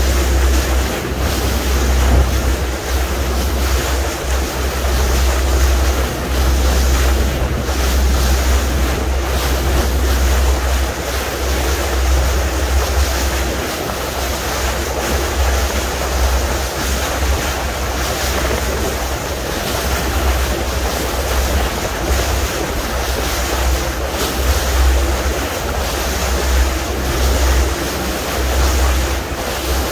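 Wind buffeting the microphone in gusts, over the rush and splash of sea water along the hull of a moving boat.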